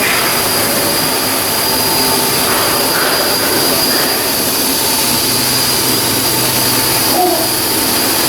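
Steady, loud machinery noise with a constant high whine. A lower hum joins about halfway through.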